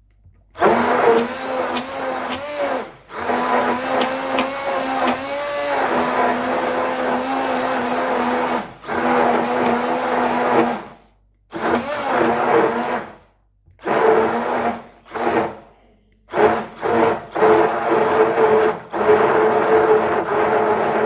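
Electric immersion (stick) blender running in a glass bowl of cake batter as flour is added. The motor hum wavers in pitch and stops and restarts several times in short bursts.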